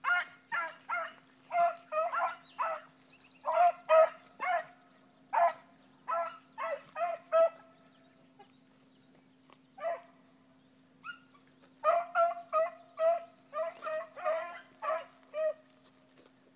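Dogs baying repeatedly while running a rabbit's trail through the brush, short pitched calls two or three a second in bouts, with a lull around the middle before a fresh burst of baying.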